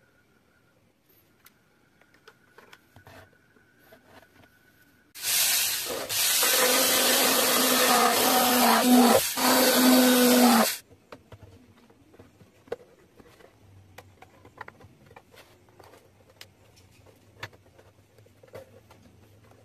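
Handheld mini rotary drill running for about five and a half seconds, starting about five seconds in, as its small bit bores holes into the edge of a PVC model-boat hull. It runs steadily with one brief dip partway through. Faint clicks of hands handling the plastic come before and after.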